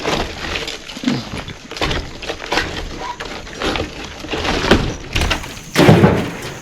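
Old wooden timbers of a log house being broken apart: a string of irregular knocks and cracks, the loudest near the end.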